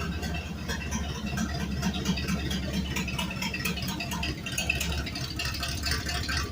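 Dodge Dakota's 318 V8 running hard with its exhaust cut off, under a busy, rapid rattling clatter, during an attempted burnout on concrete with metal-studded winter tires that mostly grip instead of spinning.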